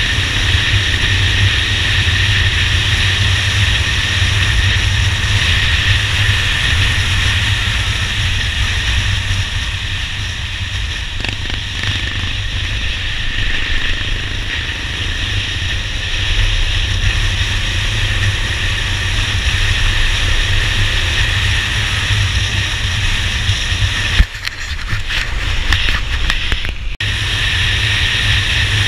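Motorcycle riding at speed: a steady rush of wind over the microphone with the engine's low drone underneath. Near the end there is a single sharp knock, and the noise dips briefly.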